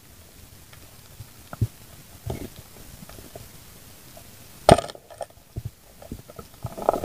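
Underwater, scattered sharp clicks and knocks over a faint hiss, with one louder knock about two-thirds of the way through and a cluster of clicks near the end.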